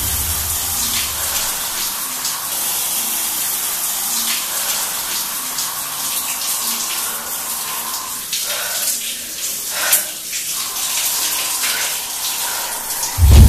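Shower running, a steady hiss of water spraying down onto a person and a tiled wall.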